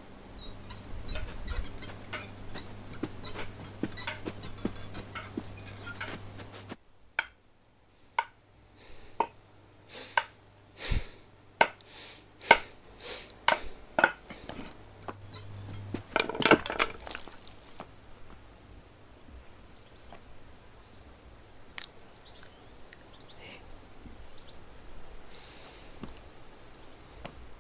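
Scattered knocks and clatter of kitchen work with pots and utensils, with short high bird chirps repeating, most often in the second half. A low hum runs underneath and stops about seven seconds in.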